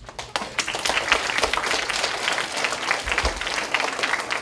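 A room full of schoolchildren applauding, the clapping starting suddenly and building to a steady dense patter within about a second.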